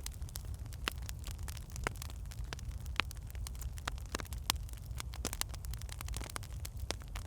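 Wood fire burning in a fireplace: logs crackling with frequent irregular snaps and a few sharper pops over a steady low rumble of the flames.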